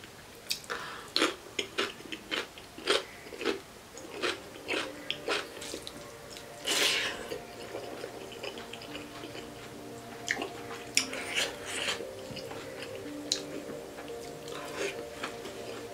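Close-up eating sounds of a person chewing pork curry with rice: repeated wet smacks and clicks of mouth and lips, with a longer noisy burst about seven seconds in. Faint background music with steady tones comes in about halfway through.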